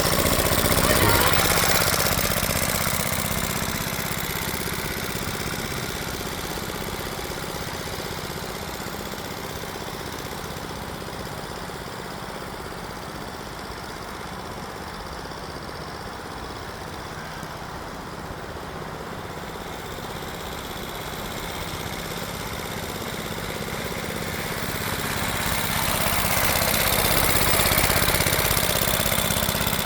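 Late-1930s Iron Horse washing machine engine running with a rapid, even putt-putt, growing fainter over the first half and louder again over the last few seconds.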